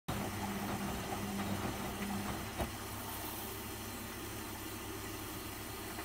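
1990s Husqvarna front-loading washing machine running mid-wash. A steady hum stops a little over two seconds in, a single knock follows, and the machine's steady running noise carries on.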